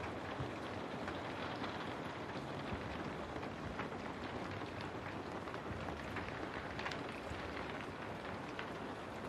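Steady rain falling, with scattered drop ticks.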